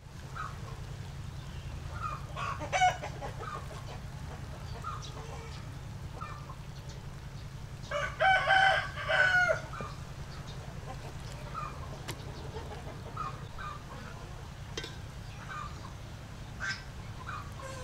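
A rooster crows once, about halfway through, a loud call lasting about a second and a half. Short chirps come here and there over a steady low hum.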